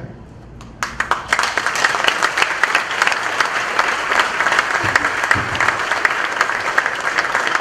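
Audience applauding: after a brief lull, many people start clapping about a second in and keep up steady, dense applause.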